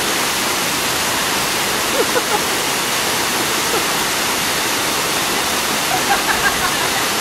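Steady rush of water from a waterfall and its rocky creek: an even hiss spread across all pitches with no let-up. Brief faint voices or laughter cut through about two seconds in and again near the end.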